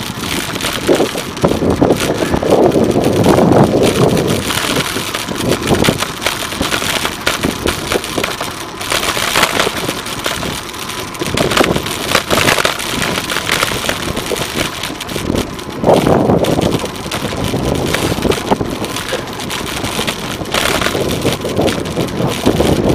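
Wind rushing over the microphone of a camera on a moving bicycle, mixed with the rumble of passing motor traffic; the noise swells and fades several times, loudest a few seconds in and again about two-thirds of the way through.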